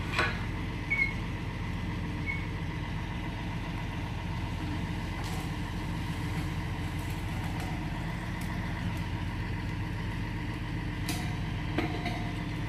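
Truck-mounted crane's engine running steadily at idle, a low even hum.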